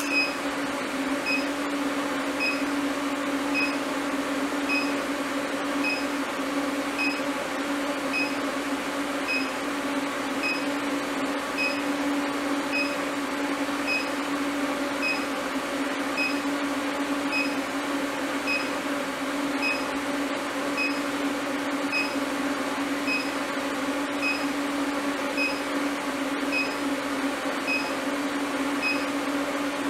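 Induction heater running with a steel bar in its work coil: a steady electrical hum with a short high beep repeating about every half-second.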